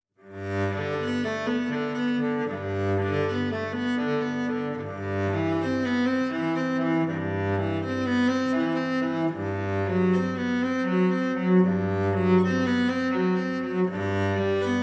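Background music led by low bowed strings like a cello, playing sustained notes that change about every second.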